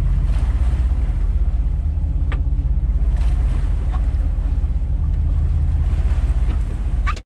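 Steady low rumble of a fishing boat at sea, its engine running mixed with wind on the microphone, with a couple of faint clicks.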